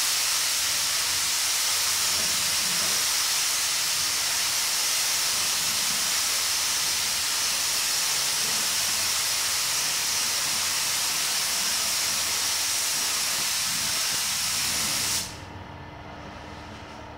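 Iwata AirGunsa spray gun with a 1.3 mm nozzle spraying clear coat: a loud, steady hiss of compressed air atomising the paint. The trigger is released and the hiss cuts off suddenly about fifteen seconds in, leaving a quieter steady hum.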